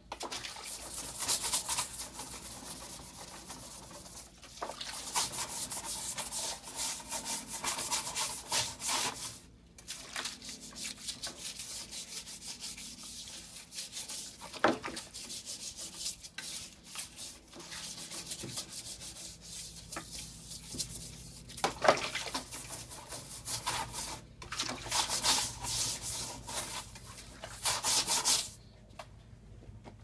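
Scrubbing brush scrubbing wet soap scum off the outer bowl of a Fisher & Paykel Smart Drive washing machine, in quick scratchy back-and-forth strokes. It comes in bursts with short pauses and stops a little before the end.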